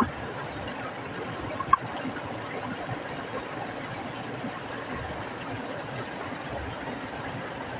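Stream of water flowing over rocks: a steady rushing, with one short click a little under two seconds in.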